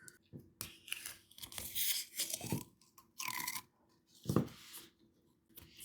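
Crinkling and tearing of plastic packaging as a slime container is unsealed and opened, in a string of short, irregular rustles.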